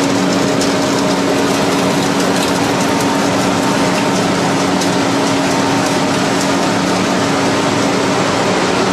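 Olive oil mill machinery running steadily: a loud, even mechanical noise with a constant low hum.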